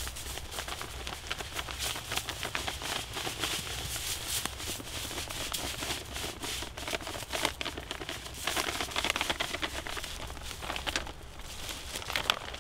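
Powdered deer mineral pouring out of a plastic bag onto bare dirt and leaf litter, a dense crackly hiss of small ticks, with the bag crinkling.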